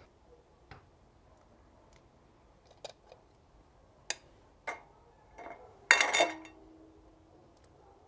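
Scattered clinks of a metal spoon against cookware while beaten egg is stirred into the broth, with a louder cluster of clinks about six seconds in that leaves a short ringing tone.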